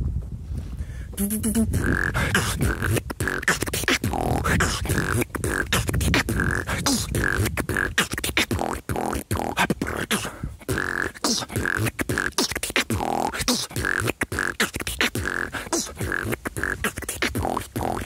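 Solo human beatboxing: a fast, dense stream of vocal percussion, with sharp clicks and snare-like strokes over low kick sounds and short high tones recurring between them.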